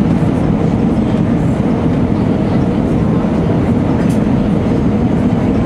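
Steady low rumble of airflow and jet engines heard inside the cabin of an Airbus A319 on approach.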